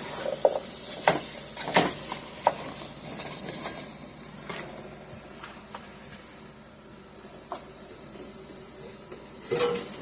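Sweet potatoes sizzling in a pan of melted butter and sugar, a steady high hiss. A utensil clicks against the pan several times in the first couple of seconds as they are stirred, then only now and then.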